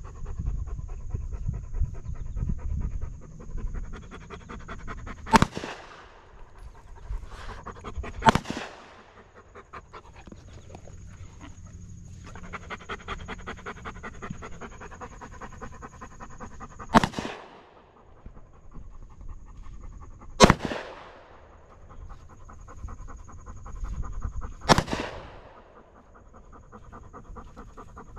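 A dog panting steadily close by, while five gunshots crack out at uneven intervals, about 5, 8, 17, 20 and 25 seconds in, each followed by a short echoing tail.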